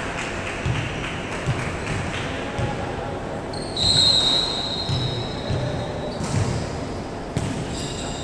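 Volleyball game in a gym with hall echo: a few dull thuds of a ball bouncing on the wooden court floor, a referee's whistle blown about four seconds in, and a sharp slap of the ball being struck near the end.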